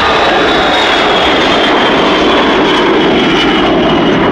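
Boeing E-8C's four Pratt & Whitney JT3D turbofan engines at takeoff power as the jet lifts off and climbs away. The engine noise is loud and steady, with a high whine that slowly falls in pitch as the aircraft passes.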